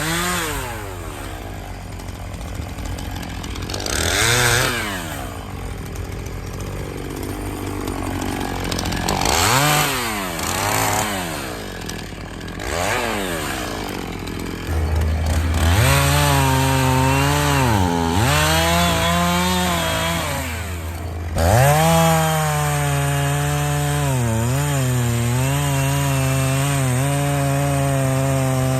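Gas chainsaw revving up and dropping back several times, then held at high throttle from about halfway through, its pitch dipping briefly a few times under load as it cuts wood. A lower steady engine drone comes in at about the same point.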